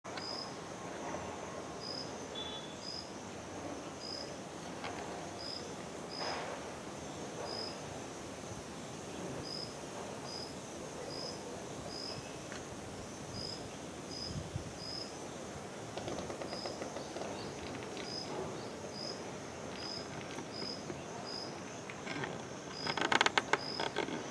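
Steady high insect drone, like crickets, with a short high chirp repeating every half second to a second. About a second and a half before the end, a burst of rapid sharp taps is the loudest sound.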